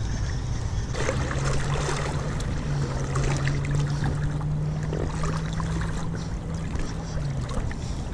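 River water sloshing and swirling around a wading angler, close to the microphone at the water's surface. A low steady hum joins it about a second in and stops near the end.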